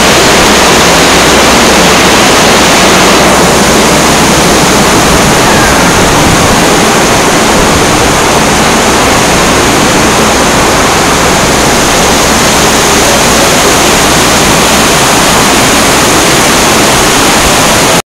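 Heavy rain pouring down in a thunderstorm, a very loud, steady roar of rain that cuts off suddenly near the end.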